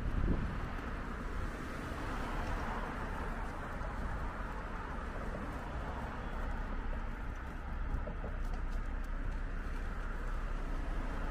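Steady outdoor city-street ambience: a continuous low rumble with a few faint, short bird calls.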